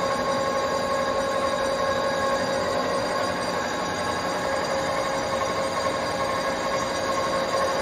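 LeBlond Makino Regal 15" engine lathe running with its spindle turning at no load: a steady mechanical whine from the headstock and drive that holds two pitches, one above the other.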